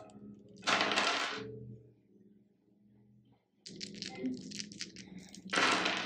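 Set of resin polyhedral dice clicking together as they are shaken in a hand, then clattering as they are rolled out onto a wooden tabletop near the end, with a similar loud clatter about a second in. Soft background music underneath.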